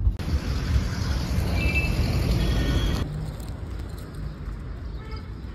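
Road traffic noise: a steady rush of passing vehicles, with two short high tones about a second and a half and two and a half seconds in. About three seconds in it cuts to a quieter background.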